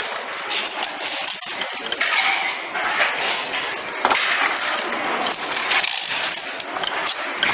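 Fast hand work with adhesive tape: tape rasping off the roll and being wrapped around small plastic parts, with a busy run of clicks and rattles from the parts and the tape machine.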